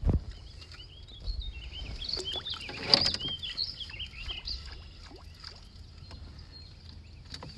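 A splash at the water's surface about three seconds in, a fish striking a Whopper Plopper topwater lure, with birds chirping throughout.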